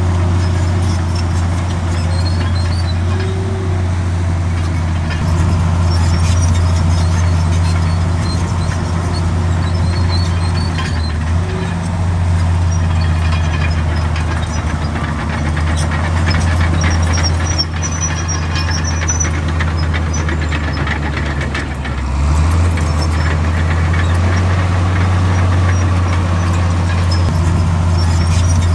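Komatsu D65 bulldozer's diesel engine running steadily under load, with a brief drop in engine speed about 22 seconds in before it picks up again.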